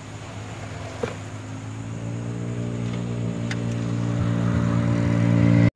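A motor vehicle's engine humming at a steady pitch, growing steadily louder as it approaches along the road, then cut off suddenly near the end.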